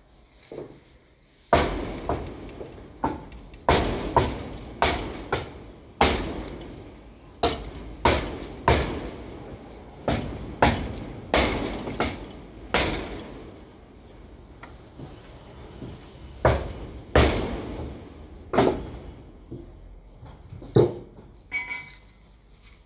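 Hammer blows on the collision-damaged rear body metal of a Hyundai Sonata being straightened: some twenty sharp metallic strikes at uneven intervals, each ringing briefly, with a pause of a few seconds midway. A short metallic ring comes near the end.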